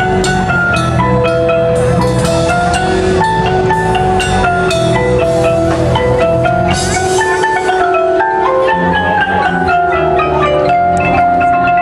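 Marimbas and other mallet keyboards playing a melodic line of struck, ringing notes over a steady low bass.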